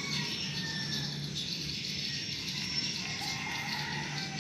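Steady high-pitched insect chirring with a few faint bird chirps, over a low steady hum.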